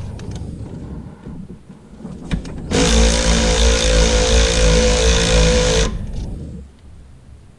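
Cordless power ratchet running steadily for about three seconds, starting a little before the middle and fading out near the end, as it turns the alternator bolt to take up drive-belt tension a little more. A few light clicks come before it.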